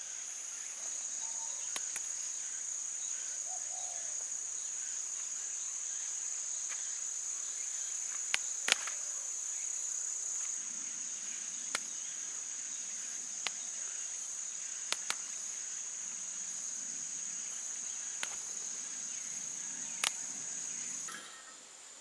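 Insects, crickets by the sound, chirring in a steady high-pitched drone, with a few scattered sharp clicks. The drone cuts off shortly before the end.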